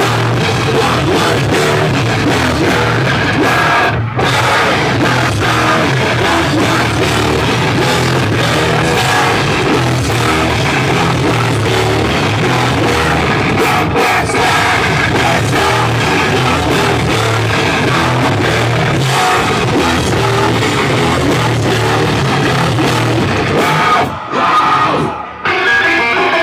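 A metalcore band playing loud and live: distorted electric guitars, bass and drum kit. The sound drops briefly about four seconds in and stops twice for a moment near the end.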